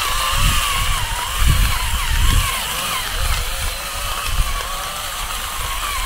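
Gas burner under a large cooking pan, hissing steadily with a faint wavering whistle and a few low bumps.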